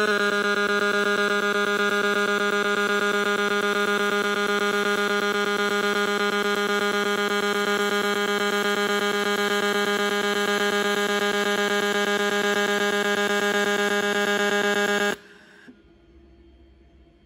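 Fronius CMT (cold metal transfer) MIG welding arc on aluminium, making a steady pitched buzz that cuts off abruptly about fifteen seconds in as the weld ends.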